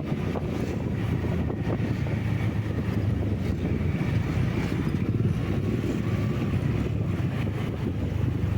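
Steady running noise of a moving road vehicle, its engine and tyres droning evenly, with wind buffeting the microphone.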